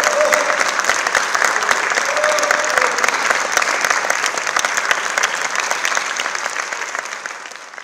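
Audience applauding: dense, steady clapping, with a brief shout from the audience about two seconds in, dying away near the end.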